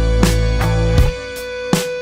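Background music with a steady beat and a held note; the bass drops out about a second in, leaving drum hits and the sustained tone.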